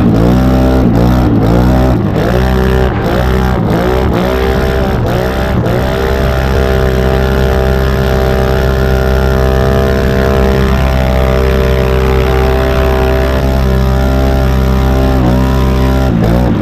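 Can-Am Renegade XMR 1000R's Rotax V-twin engine at full throttle, its pitch rising and cutting back about every half second as it bangs off the rev limiter. After a few seconds it holds a steady high-rpm run, and the limiter bouncing returns near the end. The over-revving follows clutch adjustments that the rider calls too aggressive.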